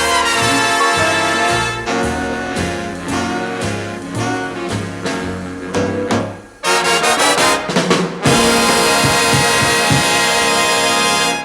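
Brass-led swing-style music with a steady low beat. It drops out briefly about six and a half seconds in, comes back with a rapid rattle, then plays a loud sustained passage.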